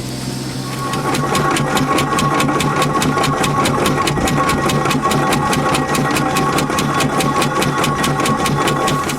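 Steam traction engine working hard, with rapid, even beats about five a second over a steady whine. It starts up within the first second and cuts off suddenly at the end.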